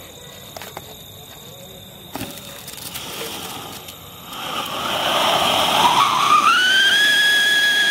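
Sunshine siren firecracker, a ground fountain with a whistle: after a few seconds of faint fuse fizzing, the fountain catches with a rushing hiss. Soon after, a shrill whistle rises in pitch and then holds steady as the siren sounds.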